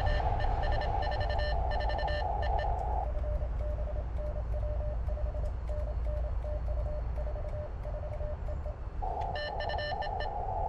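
Morse code (CW) signals from a small QRP transceiver's speaker on the 20 m ham band: a keyed tone beeping in on-off patterns over band hiss. The signal is strong for the first few seconds, weak through the middle and strong again near the end.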